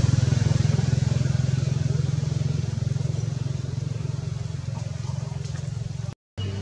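Engine of a nearby motor vehicle running with a steady low hum that slowly fades. The sound cuts out abruptly near the end.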